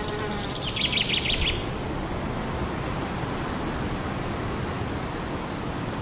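A small songbird sings a quick run of high repeated notes that drops into a lower, louder fast trill, ending about a second and a half in. Under it and afterwards, steady wind noise rushes on the microphone.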